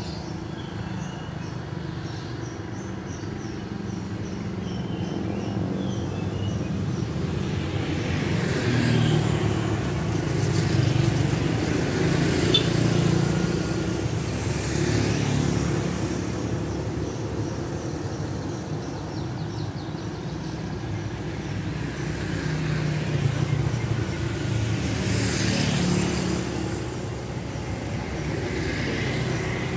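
Street traffic made up mostly of motor scooters and motorcycles, with an occasional car, passing over a steady low engine hum. The sound swells several times as vehicles go by, loudest around ten seconds in and again after twenty seconds.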